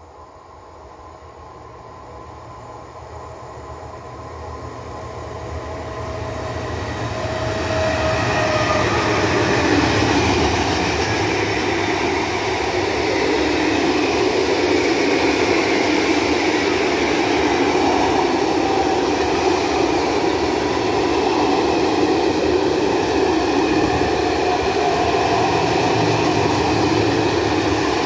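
Freight train approaching and passing close by, growing steadily louder over the first ten seconds, then a steady rumble and clatter of loaded open freight wagons rolling past on the track.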